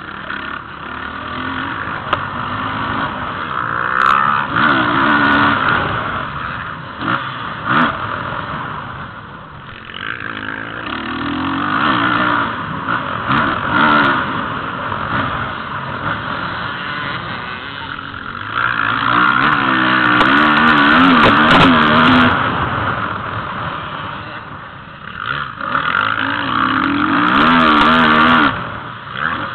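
Motocross bike engine heard on board, revving hard and easing off again and again through the lap, its pitch rising and falling in several long surges. It is loudest about two-thirds of the way through and again near the end.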